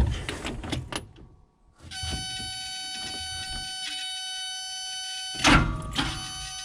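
Clicks, then from about two seconds in a steady high-pitched electric whine as the backhoe's key is turned for another start attempt. A loud clunk breaks in about five and a half seconds in. The engine does not catch; it seems stuck.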